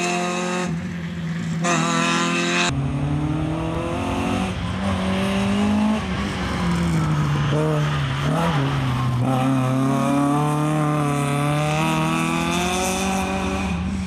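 Peugeot 106 rally car's engine driven hard, its revs rising and falling as it brakes and accelerates through corners. The sound cuts abruptly a few times near the start, then the revs drop around the middle and climb steadily again.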